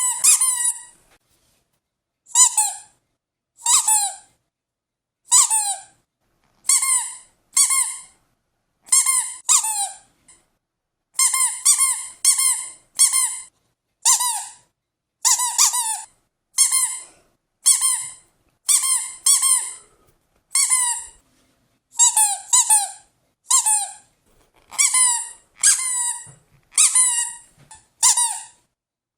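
A dog whining over and over in short, high-pitched squeaks, about one a second and sometimes in quick pairs, each dropping slightly in pitch.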